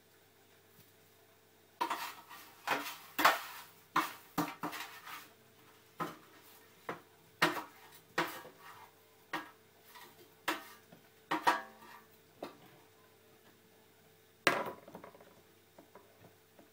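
Utensil scraping and clinking against a baking tray as potato wedges are tipped and scraped off onto a plate: a quick run of sharp clinks and scrapes starting about two seconds in, and one louder knock near the end.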